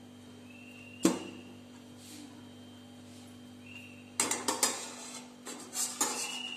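Steel spoon clinking and scraping against a stainless steel kadhai while spreading ghee around the pan: one sharp clink about a second in, then a quick run of scrapes and taps over the last two and a half seconds.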